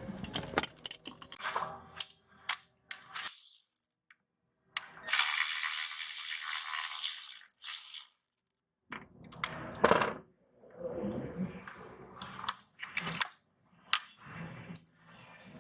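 Scattered sharp metallic clicks and clatter of tools and parts being handled, with a steady hiss lasting about three seconds in the middle.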